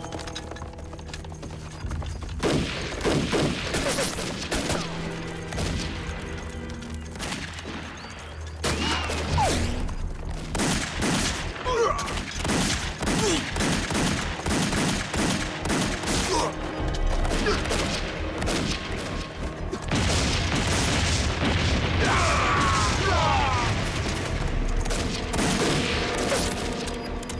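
Sustained gunfire in a film battle: rapid volleys of gunshots with occasional booms, starting about two seconds in and continuing throughout, over background music.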